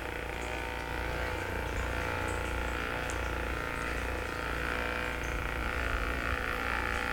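Percussive massage gun running steadily: a continuous motor buzz at a constant pitch.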